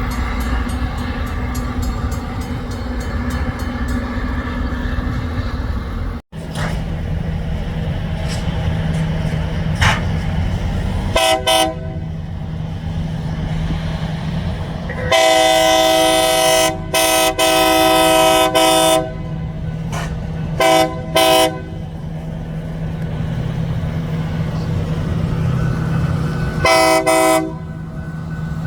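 Diesel locomotive multi-chime air horn sounding a series of blasts: a short one, two long ones, two quick short ones and a last short one. Under it runs the steady drone of the locomotive's diesel engine. Before the horn, a low rumble cuts off abruptly about six seconds in.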